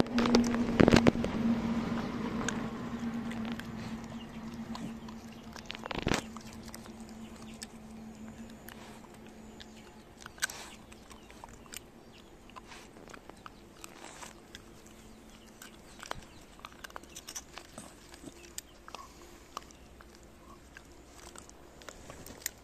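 Shiba Inu chewing and crunching cooked chicken carcass bones: irregular crunches and cracks, loudest in the first few seconds, then softer gnawing with occasional sharp cracks.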